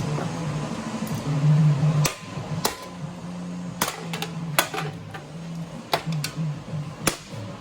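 A run of about nine sharp smacks or knocks, irregularly spaced, starting about two seconds in, over a low steady hum.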